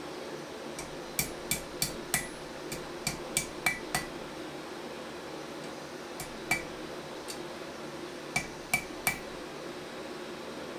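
Hand hammer striking a glowing drawknife blade held in tongs on an anvil, hot-bending it into a curve: ringing metal blows, about nine in a quick run, then a couple more after a pause and three more near the end, over a steady low hum.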